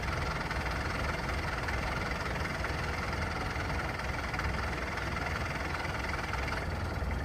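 Rice combine harvester's diesel engine running steadily at idle.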